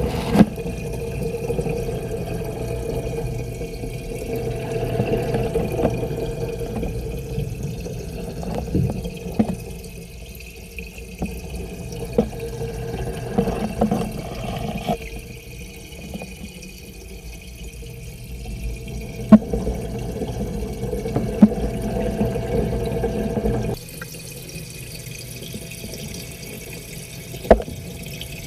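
Aquarium water and pump noise heard through a camera submerged in the tank: a steady, muffled hum and water rush, with a few sharp clicks. Near the end the sound changes suddenly and the low hum drops away.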